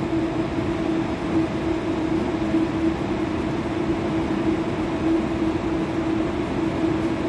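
Steady hum of a metro train standing at a platform, an 81-726.1 "Baltiets" car, with one constant mid-pitched tone over even background noise from its onboard equipment running while it waits with the doors open.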